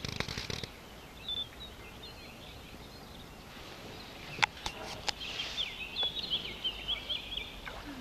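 Wild birds chirping and singing in a chorus of short high calls, sparse at first and much busier in the second half. A few sharp clicks come about halfway through.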